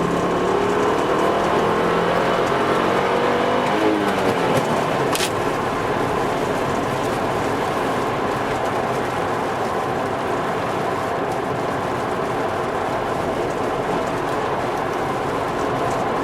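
Volvo V70 T5's turbocharged five-cylinder engine pulling with its note rising for about four seconds, then giving way to steady road and tyre noise as the car cruises, with a brief click about five seconds in.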